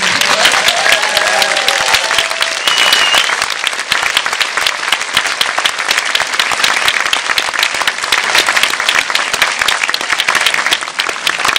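Audience applauding: dense, rapid clapping from a large crowd, with a few voices near the start and a short high whistle about three seconds in.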